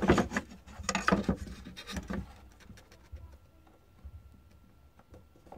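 A metal ruler being moved and set down on a wooden board by hand: a quick run of scrapes and light knocks over the first two seconds or so, then only faint handling ticks.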